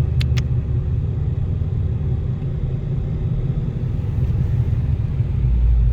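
Steady low road rumble of a moving car heard from inside the cabin, deepening a little near the end. Two brief high ticks come just after the start.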